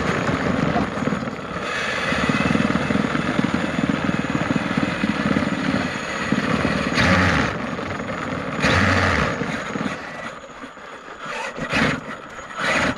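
Power Wheels Dune Racer with 2000kv brushless motors and metal gearboxes driving on concrete: a steady motor and gear whir with tyre noise, two louder surges in the middle, then quieter for a moment near the end.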